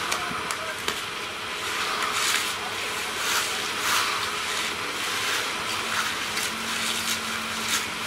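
Broad trowel scraping over wet concrete in repeated strokes, smoothing out a joint line, over the steady hum of running machinery.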